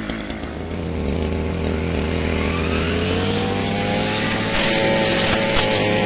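Brush cutter's small engine running and revving up, its pitch climbing steadily over the first few seconds before holding at high speed. About four and a half seconds in, it gets louder and harsher.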